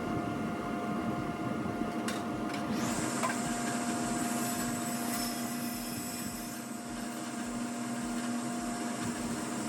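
Electric power tool motor running steadily, with a hissing noise joining about three seconds in; the sound drops off sharply near the end.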